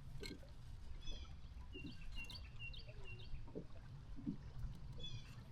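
A bird calling, a quick run of about six short, high chirps about two seconds in, over a steady low rumble.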